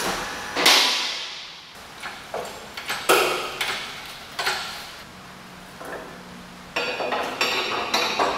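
A series of sharp metal clanks and knocks, each ringing briefly, from tools and parts being handled on a steel vehicle chassis. The hits come irregularly and bunch together near the end.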